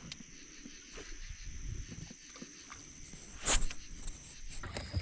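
Steady high-pitched chorus of night insects, with low rustling and knocks on the boat and one sharp knock about three and a half seconds in.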